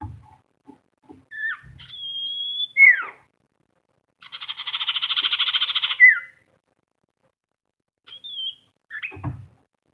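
Common iora (cipow) calling: a held high whistled note, sharp downward-sliding notes, and a fast buzzy trill of about two seconds about four seconds in, with two more short notes near the end. A few faint low thumps come through as well.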